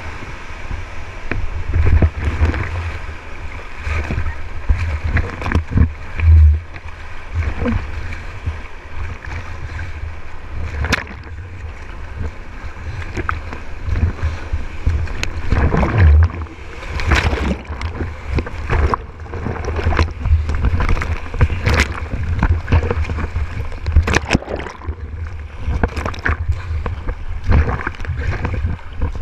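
Whitewater rapids rushing around an inflatable kayak's bow, with frequent heavy splashes and low thumps as waves break over it.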